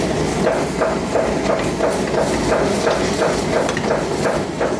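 Metal ladle stirring and scraping a thick tomato-and-milk gravy in a pan, in a steady rhythm of about three strokes a second, over a constant low roar of kitchen noise.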